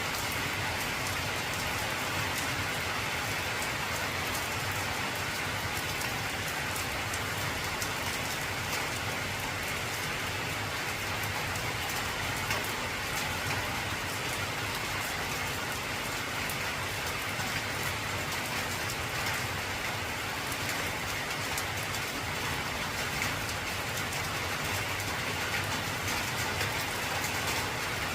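Heavy rain drumming steadily on an old corrugated tin roof, a dense patter of drop impacts with no break.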